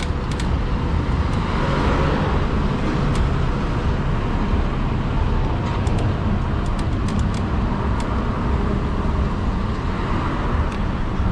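Steady rush of wind and road noise from riding a modded fat-tire e-bike, a constant rumble with a few faint ticks.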